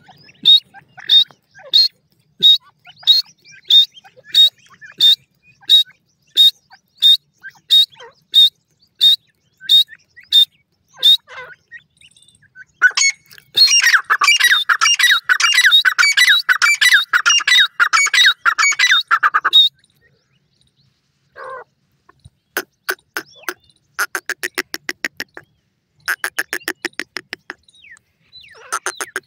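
Grey francolin calls: sharp high notes repeated evenly about one and a half times a second for about eleven seconds, then a fast unbroken run of notes for about six seconds, and later several short rapid trains of notes.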